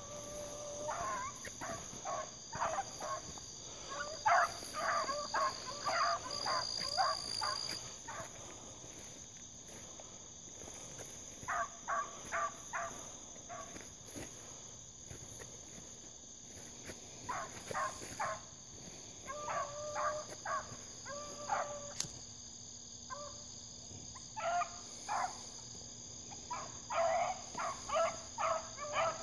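A pack of rabbit hounds giving tongue in bursts of quick yelping barks, with a few longer drawn-out bawls: the pack running a rabbit. A steady high insect trill continues underneath.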